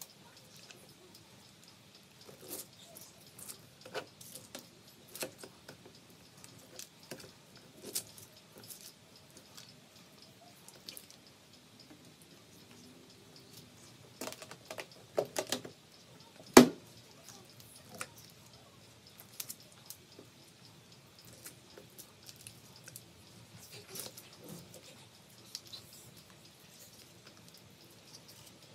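Honeycomb being scraped off wooden frames and crushed into a wire-mesh strainer: scattered sticky, wet crackles and clicks of wax comb, with one sharp knock a little past halfway.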